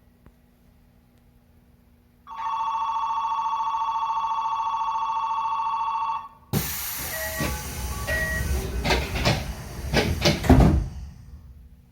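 A station departure bell rings steadily for about four seconds. It is followed by several seconds of loud clattering and hissing with a few sharp knocks as the train's doors close.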